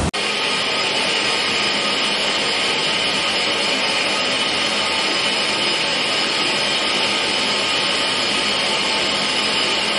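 Southern Railway rebuilt Battle of Britain class steam locomotive 34059 standing with steam escaping in a steady, loud hiss, without any exhaust beat.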